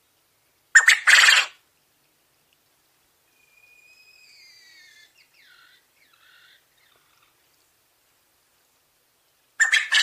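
Coturnix quail giving two loud, short calls, one about a second in and another near the end. In between come faint falling whistled notes.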